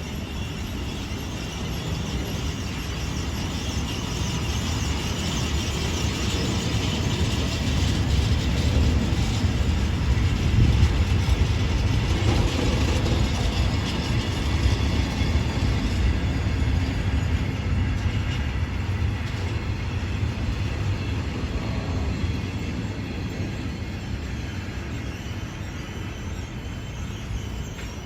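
Container wagons of an intermodal freight train rolling past on jointed track: a steady rumble of wheels on rail that swells to its loudest about a third of the way through, then eases slowly.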